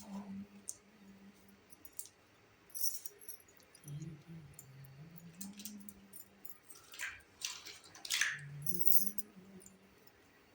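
Small hard toy pieces from a miniature kitchen set clicking and clinking as they are handled, with a few louder scraping strokes a little past halfway.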